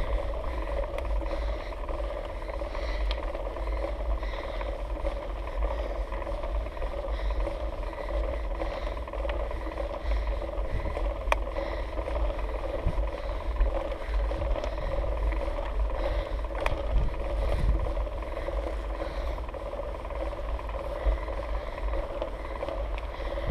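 Mountain bike riding up a steep concrete track, heard through a handlebar-mounted GoPro: a steady low rumble of the tyre rolling and the bike shaking the camera, with a faint hum and a few light clicks.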